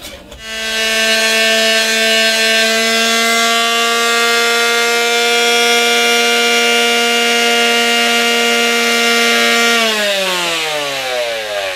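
Handheld electric detail sander switched on and running with a steady hum while it smooths the ragged hacksaw-cut end of a brass drain tube. About ten seconds in it is switched off, and its hum falls in pitch as the motor winds down.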